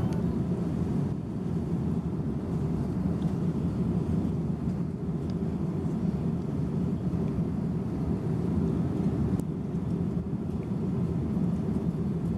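Steady low rumble of an airliner cabin: jet engine and airflow noise, even throughout.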